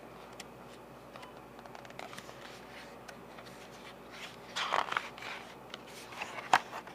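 Pages of a picture book being handled and turned: faint paper rustling and small clicks, with a short rustle a little past halfway and one sharp tap near the end.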